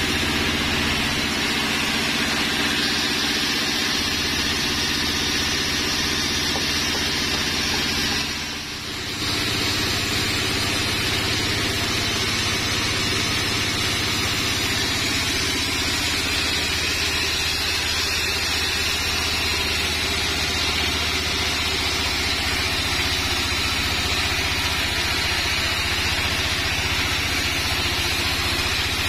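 Band sawmill running with a steady machine drone, its blade cutting lengthwise through a sengon log. The sound drops briefly about eight seconds in, then carries on.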